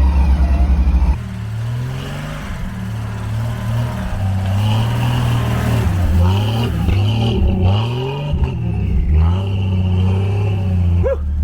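Off-road 4x4's engine revving up and down over and over while it works to get through deep snow, after a steady engine drone in the first second and returning to it near the end.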